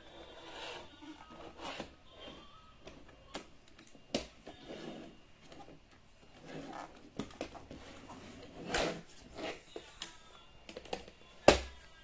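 Handling noise from a plastic robot vacuum being turned over in the hands: scattered clicks, scrapes and rubbing on its casing, with one louder knock near the end.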